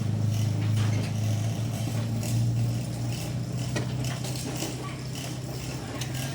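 Maestro chainsaw engine idling steadily with a low, even hum, off the cut.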